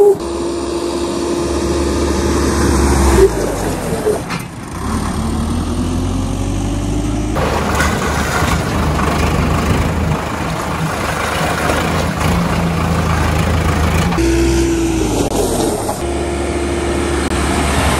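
Sonalika tractor's diesel engine running as it drives on a concrete road, its note dropping a few times as the tractor slows under braking.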